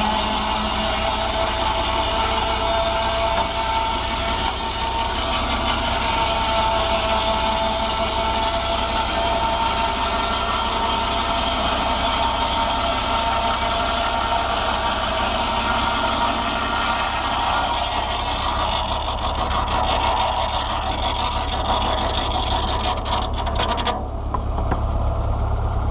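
Rack sawmill running, driven through the PTO by a Fordson Power Major tractor engine: a steady mechanical din with a whining, hissing upper layer from the 4 ft 6 in carbide-tipped blade. Near the end the upper layer cuts off suddenly, leaving only the low steady run of the tractor engine.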